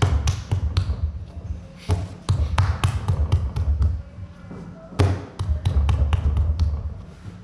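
A thick coil of soft clay being slapped and patted flat by hand on a wooden workbench: quick runs of dull thuds, about five a second, with short pauses between the runs.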